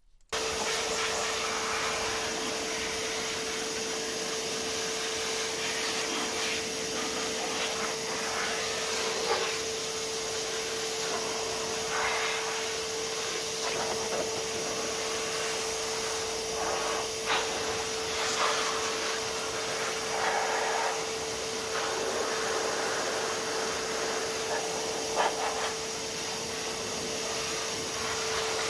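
Titan 1300 W wet/dry vacuum running in blow mode, its motor holding a steady whine under a rush of air, with brief surges as the jet hits different spots. It is blasting leftover water out of the nooks of a freshly washed engine bay.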